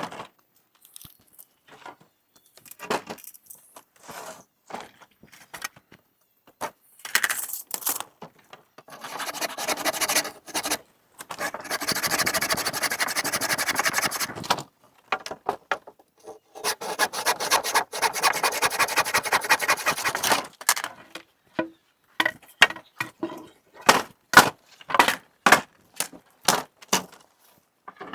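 Wood being handled and worked: scattered knocks and clatter, two long spells of scraping about nine and seventeen seconds in, then a quick run of sharp knocks near the end.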